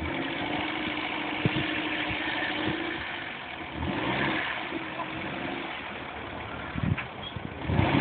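Small hatchback's engine running at low revs, rising and falling a little as the car is reversed slowly into a parking space.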